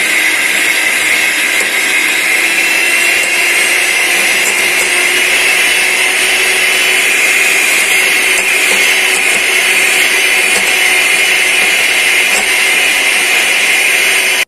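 Handheld electric mixer running steadily, its twin beaters whisking butter, brown sugar and egg in a bowl, beating the batter until fluffy. The motor's pitch rises slightly a couple of seconds in.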